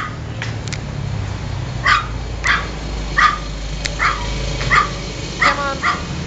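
Miniature pinscher barking: about ten short, sharp barks at irregular intervals.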